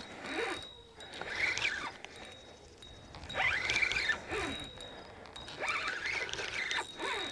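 Fishing reel whirring in several short bursts about two seconds apart, each rising and falling in pitch, as line is worked against a large channel catfish on the line.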